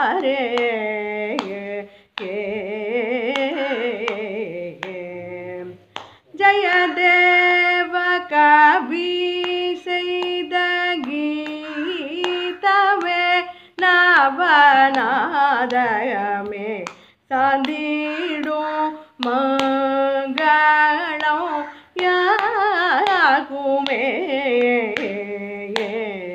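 A woman's solo voice singing a Tamil Ashtapadi, a devotional namasankeertan song, in Carnatic style. She sings long held and ornamented phrases with short breaks between them.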